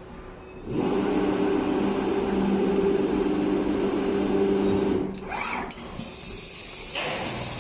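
An automatic large-panel sewing machine running steadily with a motor hum for about four seconds before stopping. A short rising hiss of air follows, then a steady high whine and low hum.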